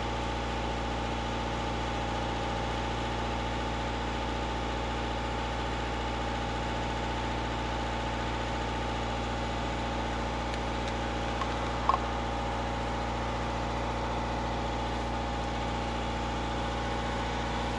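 A boat's engine running steadily: a constant drone with a few held tones underneath. A single brief click about twelve seconds in.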